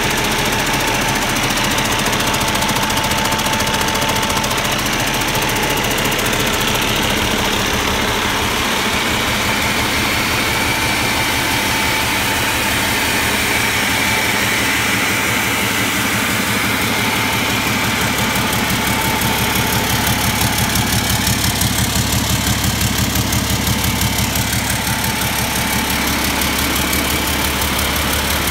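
Cummins ISX15 inline-six diesel engine running steadily at idle, with even firing pulses. The low end grows fuller and a little louder about two-thirds of the way through.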